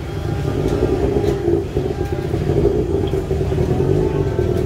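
A motor vehicle's engine running close by, a steady low drone with no clear change, over the bustle of a street market.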